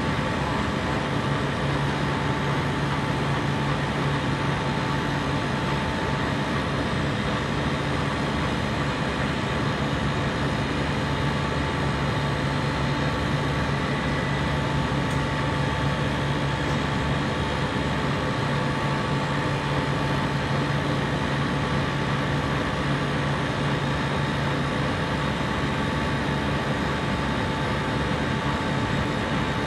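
A compressor running steadily: an even mechanical hum with a low drone and a higher held tone, unchanging throughout.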